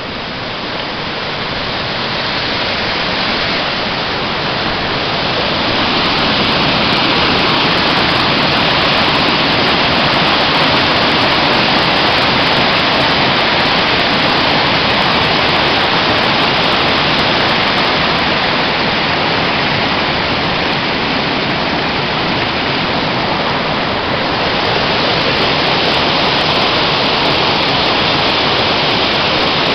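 Waterfall: a loud, steady rush of falling water that grows louder about six seconds in.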